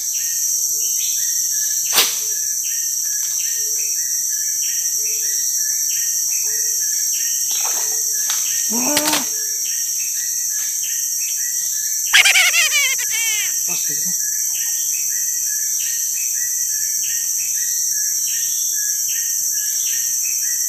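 Steady, high-pitched drone of rainforest insects, with a rhythmic chirping about twice a second over it. A single click about two seconds in, and a short call falling in pitch about twelve seconds in.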